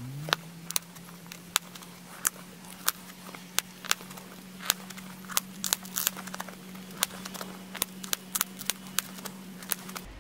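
Pressure flaking of a flint arrowhead: small flakes snap off the stone's edge under a hand-held pressure flaker, each with a sharp click, irregularly, often two or three a second. A steady low hum runs underneath.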